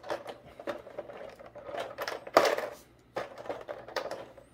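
Small plastic action-figure hand parts clicking and rattling in a hard plastic blister tray as they are picked out, in a run of quick light clicks with one louder clatter about halfway through.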